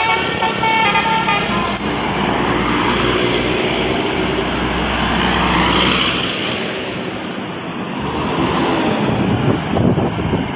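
A bus's multi-tone telolet horn playing a short melody, which stops about two seconds in. Then a large bus passes close, its engine and tyre noise swelling and fading about six seconds in, followed by more passing traffic.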